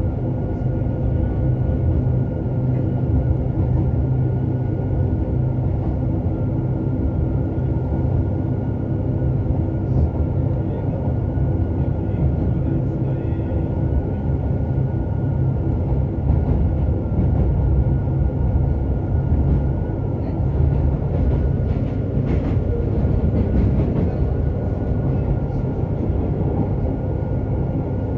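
Running sound inside a JR Hokkaido 731 series electric train car, MoHa 731-109: a heavy steady roar from the traction motor on one bogie, an abnormal noise that sounds like an old nose-suspended (tsurikake) motor drive, with steady whining tones over the rumble at an unchanging pitch.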